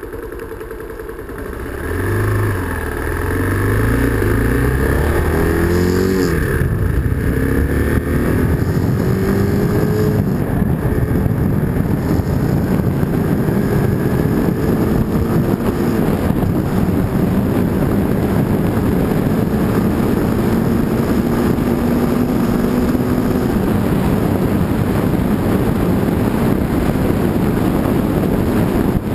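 Bashan Storm motorcycle engine accelerating hard through the gears, its pitch climbing and falling back at each shift over roughly the first dozen seconds, then holding steady at speed under a heavy rush of wind and road noise.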